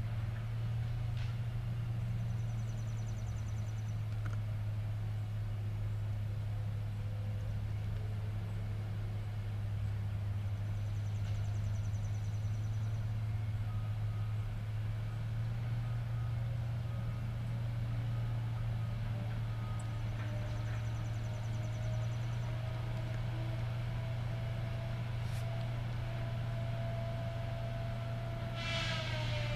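Caterpillar 573C feller buncher's diesel engine running steadily as a low hum. A faint whine climbs slowly in pitch through the second half and drops away near the end.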